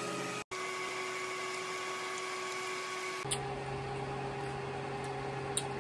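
A steady machine hum with a few faint steady tones in it. Its pitch and character change abruptly about three seconds in, and a few faint clicks come near the end.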